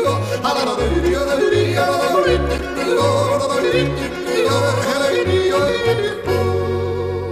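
Background music: a solo singing voice with a wavering, ornamented melody over a bass line that steps from note to note.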